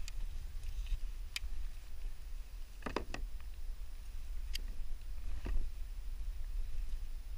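Kayak at sea: a steady low rumble with four or five scattered knocks and clicks, the clearest about three seconds in.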